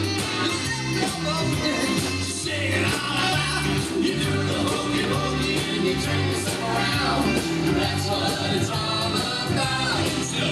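Upbeat band music with a steady beat, a bass line and singing voices.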